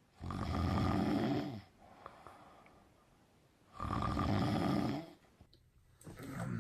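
A man snoring in his sleep: two loud, rattling snores about three and a half seconds apart, each lasting about a second and a half, then a fainter one near the end.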